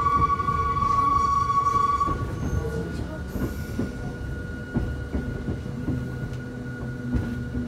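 Hakone Tozan Railway train's wheels squealing against the rails on a sharp curve: a steady high squeal that fades about two seconds in, leaving the low rumble of the running train with scattered clicks.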